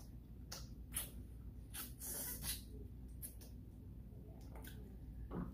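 A person chewing food close to the microphone: scattered wet mouth smacks and clicks at irregular moments, with a slightly longer run of smacking about two seconds in.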